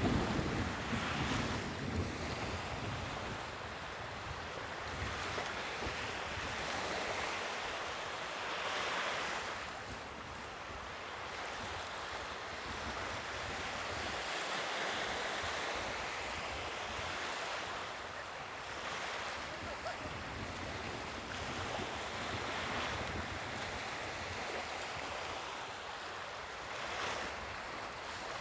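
Sea waves breaking and washing onto the shore, the wash swelling and fading every several seconds.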